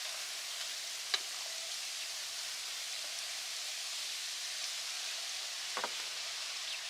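Steady hiss of outdoor background noise, with a single sharp click about a second in and a brief short sound near the end.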